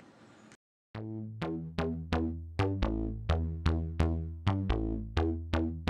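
Electronic background music with a steady beat: synthesizer notes struck about three times a second over a bass line, starting about a second in after a brief silence.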